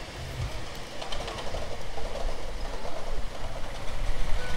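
Ride-on miniature railway passenger train rolling past on its raised track, a steady low rumble of wheels on rails, with a few clicks about a second in.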